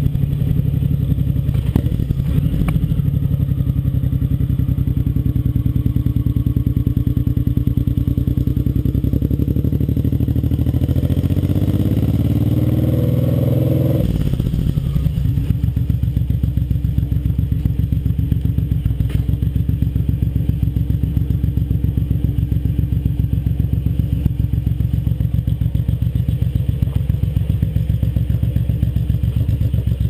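Suzuki Boulevard M109R's big V-twin engine running at low speed, with a couple of sharp knocks about two seconds in. Around the middle the revs climb for several seconds, then fall suddenly, and it settles back to a steady low-rev pulsing.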